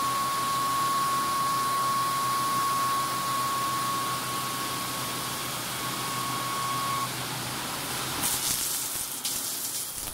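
Hyundai Kia SKT 250 MS CNC lathe running with coolant spraying onto the spinning workpiece: a steady wet hiss with a thin high whine that stops about seven seconds in. Near the end the spray turns louder and hissier.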